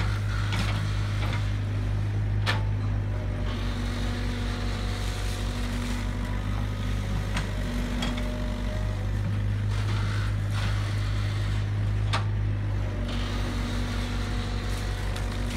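Tracked excavator's diesel engine running steadily while digging, its low drone swelling and easing with the load of the arm. Two sharp knocks are heard, one a couple of seconds in and one about three-quarters of the way through.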